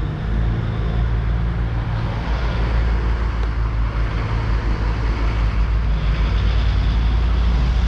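Road traffic: a motor vehicle's engine running close by with a steady low hum, under a constant wash of traffic noise.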